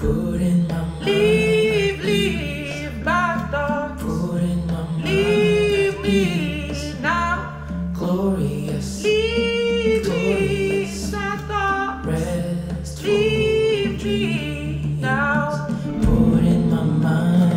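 Recorded music playing through Cabasse Antigua MC170 hi-fi loudspeakers driven by a Cabasse Abyss amplifier: layered, choir-like sung vocals over a steady low pulse of about two beats a second. The low pulse stops near the end.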